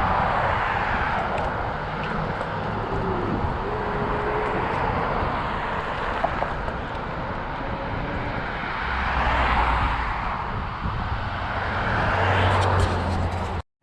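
Road traffic passing while travelling along a street: a steady rush of road and wind noise, with vehicles swelling up and fading away several times. The sound cuts out abruptly for a moment near the end.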